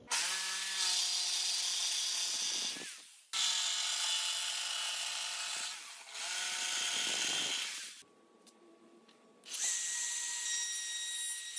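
Corded jigsaw cutting a red oak board: a running motor whine with the blade rasping through the wood, in two long runs broken by a brief stop about three seconds in, ending about eight seconds in. A second and a half later a compact trim router starts up and runs with a steady high whine.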